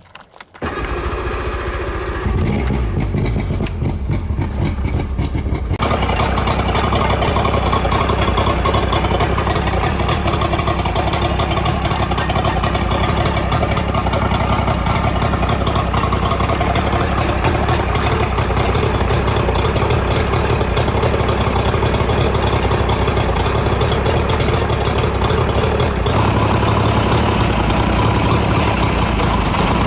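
A 75 hp oil-injected two-stroke outboard motor is started with the key about half a second in. It catches within a couple of seconds and then runs steadily while cooled by water from a garden hose on flush muffs, as it is being run for winterization fogging.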